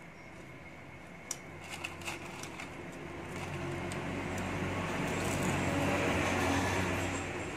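A motor vehicle's engine passing by, growing louder to its peak about six seconds in and then fading. A few light clicks come in the first couple of seconds.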